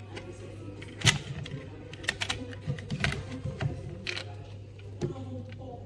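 Irregular light clicks and knocks, a few a second and loudest about a second in, over a steady low hum.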